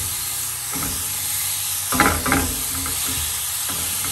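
Enoki mushrooms sizzling in butter in a frying pan while a spatula stirs them. The strokes scrape and rustle through the mushrooms about a second in and again at about two seconds.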